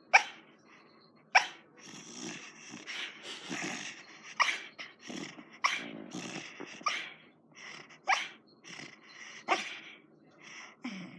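Sleeping dog snoring, with a sharp, sudden catch in her breath about every second and a half between noisy breaths.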